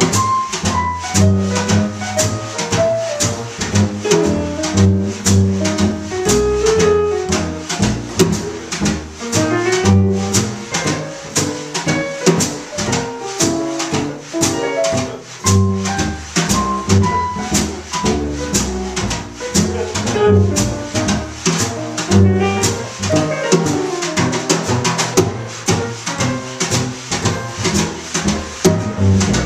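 Small jazz group playing: a digital piano carrying the melody and chords over a walking bass line, with a drum kit keeping time on cymbals.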